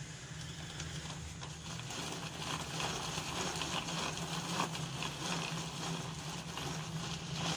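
Super General hand-cranked manual food chopper being turned, its blades spinning through onions in the bowl with a steady fast clicking rattle.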